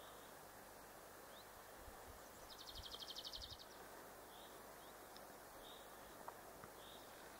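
Quiet outdoor ambience with faint wild birdsong: a songbird gives one short, rapid trill of about a dozen evenly repeated high notes a few seconds in, with a few scattered faint chirps after it.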